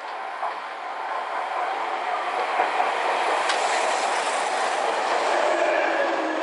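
Tokyu 9000 series electric train running in along the platform, its wheel-on-rail noise growing louder as the cars pass close, with a sharp click about halfway through.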